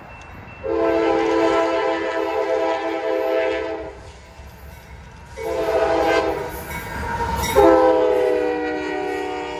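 CSX freight locomotive air horn sounding three long blasts, several notes at once, as the train approaches. The third blast starts loudest and sags slightly in pitch as the lead locomotive passes, over the low rumble of the train.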